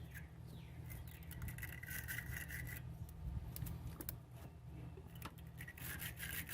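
Battery terminal cleaning brush scrubbing back and forth inside a battery cable clamp in irregular scratchy strokes, cleaning the metal so it makes good contact. A steady low hum runs underneath.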